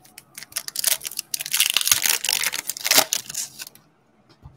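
Foil wrapper of a Donruss football card pack being torn open and crinkled by hand: scattered crackles that thicken into dense crinkling for about two seconds, stopping shortly before the end.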